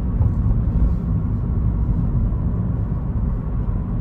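Steady low rumble of a car driving along the road, heard from inside the cabin.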